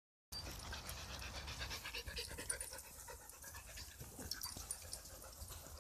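Nova Scotia Duck Tolling Retriever panting steadily.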